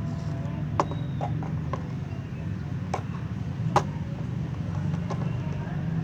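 Plastic toy kitchen parts clicking and knocking together as they are handled and fitted, a few sharp clicks with the loudest a little past the middle, over a steady low background hum.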